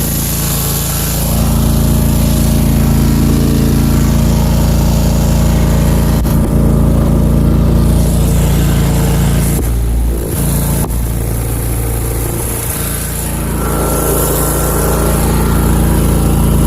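Country Clipper zero-turn mower's engine running steadily under load while towing a rotary-hoe aerator through mud, its note shifting briefly about ten seconds in.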